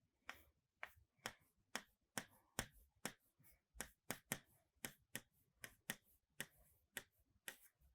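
Faint, sharp clicks, about two a second and irregularly spaced, in a near-silent room.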